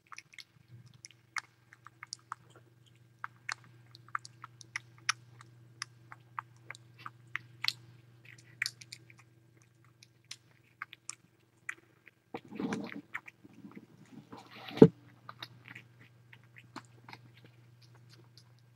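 Tiny kittens making small, irregular wet clicks and smacking mouth sounds over a low steady hum. A louder rustle comes about twelve seconds in, and a single sharp knock near fifteen seconds.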